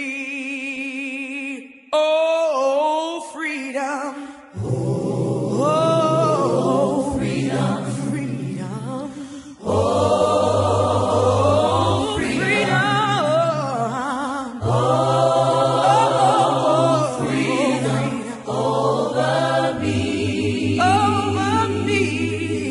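An a cappella choir singing. A single voice holds a wavering note at first, then the full choir with low voices comes in about four seconds in and sings on in long phrases.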